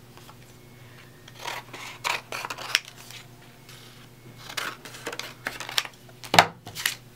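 Handheld paper scissors snipping through paper in two short runs of cuts, about a second and a half in and again around five seconds in. Near the end there is one louder thump.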